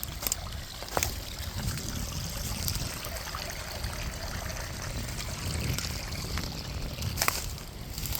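Creek water trickling and running steadily in a flooded stream, with a couple of short sharp knocks, about a second in and near the end.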